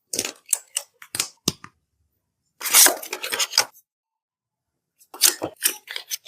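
Smartphone box and packaging being handled and opened: a few sharp clicks and taps, then about a second of loud rustling and tearing near the middle, then another run of short rustles and clicks.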